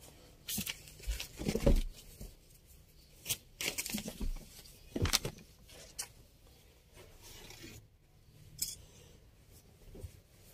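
Lawn cotton fabric rustling as lengths of unstitched suit cloth are handled, lifted and spread out, in short irregular rustles.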